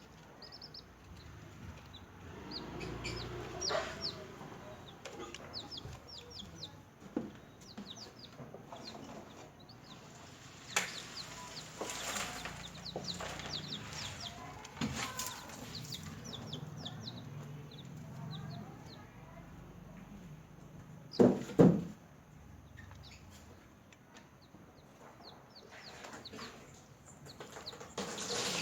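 Newly hatched chicks peeping: many short, high chirps throughout, with two loud, lower bursts about two-thirds of the way in.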